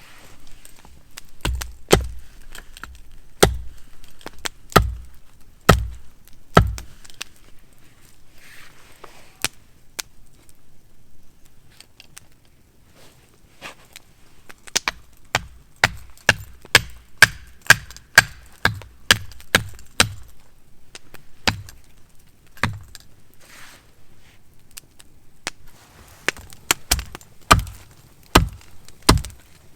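Firewood being chopped with repeated sharp blows. A few strikes come about a second apart, then a quick run of about two a second, then more strikes near the end.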